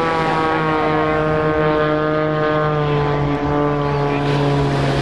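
Extra 330SC aerobatic monoplane's piston engine and propeller running at power, a steady drone whose pitch falls slowly.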